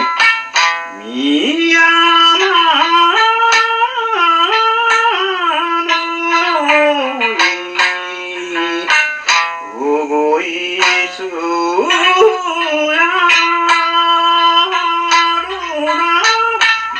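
Male singer performing an Amami shima-uta folk song, his voice sliding and wavering between held high notes, with a sanshin plucked at intervals.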